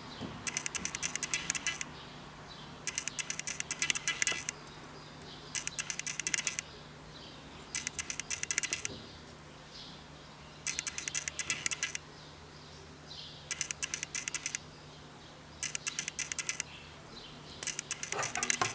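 Screwdriver clicking in short bursts of rapid ticks, each about a second long and repeating every two seconds or so, as screws are worked out of a diagnostic tool's case. A steady low hum runs underneath.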